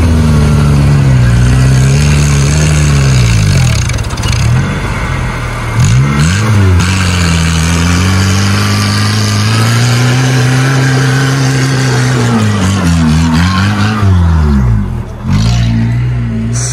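Off-road 4x4's engine revving hard under load, its pitch rising and falling again and again as the throttle is worked, with a few sharp drops where it is let off.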